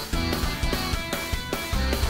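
Background music with a steady beat of about four strokes a second.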